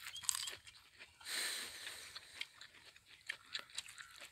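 Fresh coconut palm heart (kuruthu) being peeled apart by hand: crisp crackles and snaps from the fibrous strips, with one longer ripping tear about a second in. A crunchy bite into a raw strip comes near the end.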